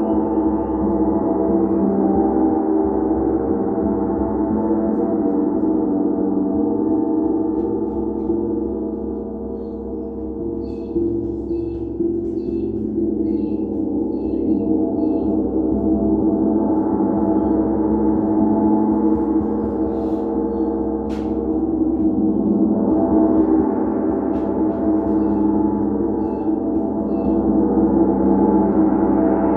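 Gong kept sounding by soft, continuous playing for gong therapy: a dense, sustained shimmer of many overlapping tones that grows brighter and louder in two swells in the second half.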